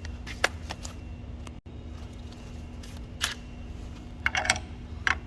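A few scattered light clicks and taps of tools being handled, over a steady low hum. No impact driver is running.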